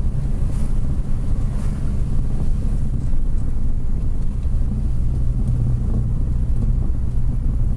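Car engine and road noise heard from inside the cabin while driving, a steady low drone that grows a little stronger about halfway through.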